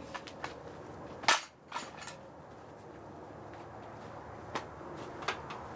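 Sharp knocks and clacks of a cant hook and a log being worked into place on a bandsaw mill's steel bed: a scattering of single knocks, the loudest about a second in.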